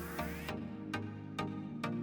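Electronic background music with a steady beat of about two strokes a second over held synth notes; a rising sweep ends abruptly about half a second in.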